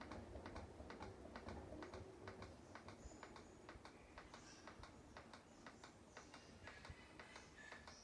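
Faint, irregular clicks and light taps, several a second, over near silence, with a few faint short high chirps in the middle and near the end.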